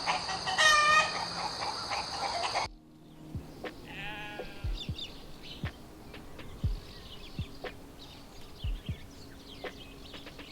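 Chickens calling: a loud, harmonic squawking call for the first two and a half seconds, then a quieter stretch with a short cluck about four seconds in, faint high chirps and scattered low taps.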